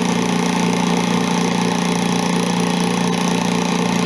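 Washing-machine motor driving a homemade belt and drum sander, running at a steady speed: an even, loud hum with a hiss over it.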